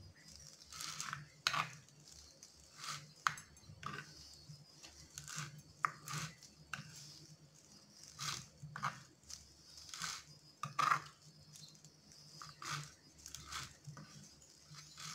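Kitchen knife chopping fresh mint leaves on a wooden chopping board: uneven taps and crunches, about one a second.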